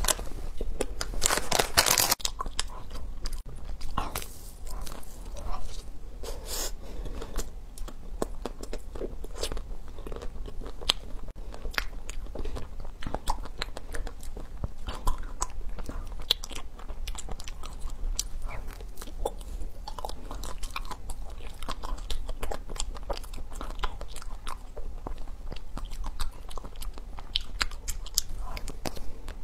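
A person biting and chewing crunchy food, with dense irregular crunching throughout and the loudest bites about one to two seconds in.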